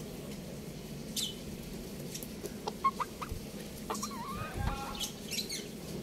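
Chickens clucking in a few short calls, starting about halfway in, with a few light clicks before them.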